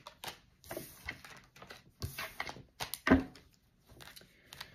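A deck of tarot cards being shuffled by hand: a string of quick papery riffles and light taps of the cards, with one louder knock about three seconds in.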